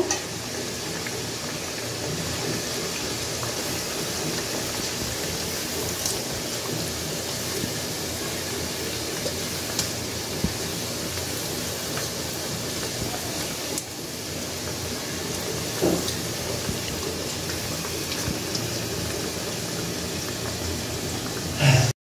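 Green gram sprout vadas deep-frying in oil in a kadai on a low flame: a steady sizzle and bubbling, with a few light clicks as the vadas are turned.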